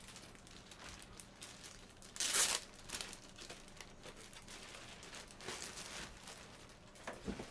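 Crinkling and rustling as a signed jersey and its packaging are handled, in scattered bursts, with one louder crinkle about two seconds in.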